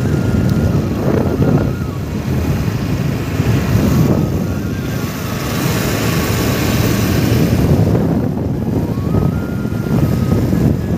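Motorcycle running along the road, with wind buffeting the microphone in a steady low rumble that swells in the middle.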